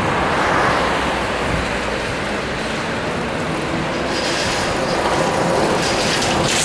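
City street traffic with a Hess SwissTrolley 2 electric trolleybus approaching: a steady rumble and road noise that grows hissier about four seconds in.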